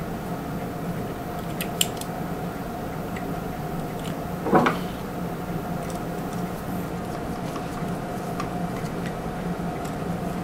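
Steady low hum, with light clicks and one short knock about four and a half seconds in, as small metal press parts are handled.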